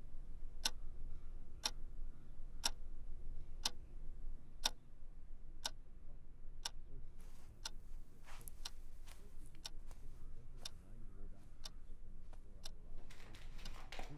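Wall clock ticking steadily, about once a second. From about halfway on, softer scattered clicks and rustling sit between the ticks.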